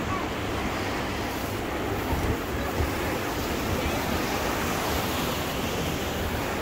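Sea surf washing steadily against a rocky shore, with wind on the microphone.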